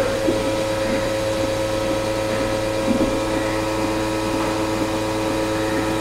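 Steady mechanical hum with a few held tones from milking parlour machinery running while cows are being milked.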